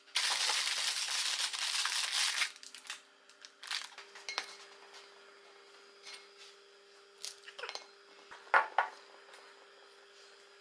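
Plastic bread packaging crinkling as it is handled and opened, loud for the first couple of seconds. Then quieter light taps and clicks of things handled on a wooden table, with two sharper knocks about eight and a half seconds in.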